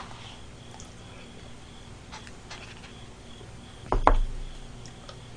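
A few faint clicks, then about four seconds in a short knock and thud on the table as a cup is set down.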